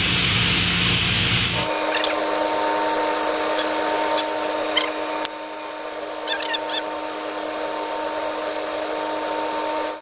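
Steady machinery noise from an onboard auxiliary boiler space. Less than two seconds in it changes abruptly to a quieter steady hum and hiss, with a few light clicks in the middle.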